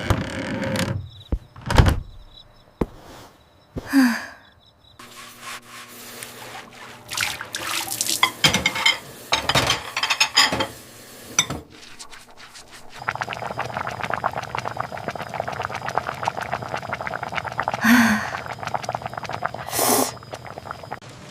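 Water sounds with scattered knocks and thunks, settling from about halfway into a steady patter of rain. Two more thunks come near the end.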